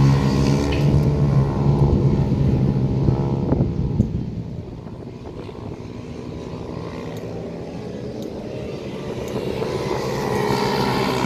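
Several Ohvale mini racing motorcycles, with small four-stroke single-cylinder engines, running at race speed on track. The engines are loud at first, fade as the bikes move away about four seconds in, and grow louder again near the end as the pack comes back toward the microphone.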